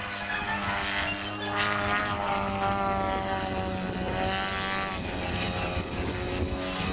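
Radio-controlled Extra 300 model plane's DA-170 twin-cylinder two-stroke petrol engine and propeller. The pitch rises and falls several times as the throttle changes through aerobatic manoeuvres.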